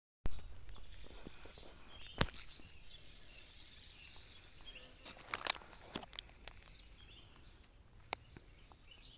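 Steady high-pitched drone of insects, such as crickets or cicadas, with faint short chirps over it. A few sharp clicks stand out, the loudest about two seconds in.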